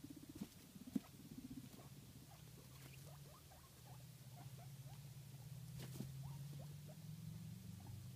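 Guinea pig making a low, rapid purring rumble that builds after the first second or two, with small clicks and a single sharp tick about six seconds in.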